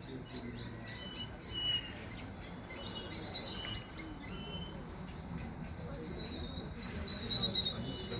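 Birds chirping, many short high calls and whistles overlapping, growing busier near the end. A low steady hum lies beneath.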